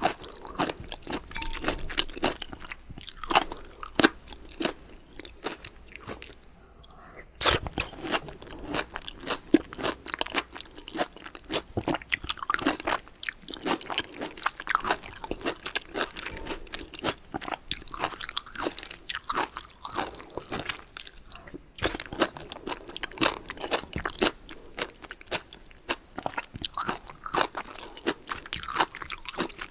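Close-miked eating sounds: a person chewing and crunching food in a steady, irregular run of crisp crunches and wet mouth clicks.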